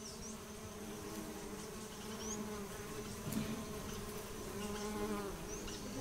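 A swarm of small black stingless bees buzzing around their nest entrance in a tree trunk, a wavering hum that rises and falls. A few short, faint high chirps sound over it.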